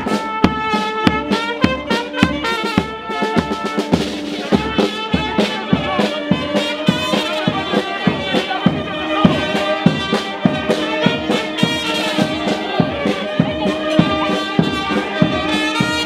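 Live brass street band playing a lively tune: saxophone, trumpets and tuba over a steady bass-drum beat.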